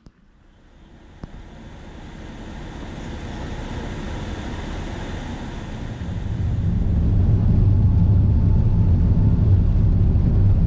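Vehicle running and rolling, its noise building steadily as it gets under way, then a loud, steady low rumble from about two-thirds in.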